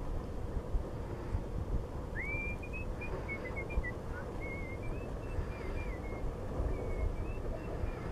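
Low rumble of wind buffeting the microphone. From about two seconds in, faint high whistled notes come in: one rising note held briefly, then a scatter of short bending chirps.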